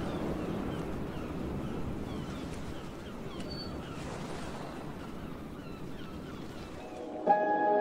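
Steady wind-and-surf ambience with faint, short, high chirps scattered through it. Near the end, ambient music with sustained ringing tones starts suddenly.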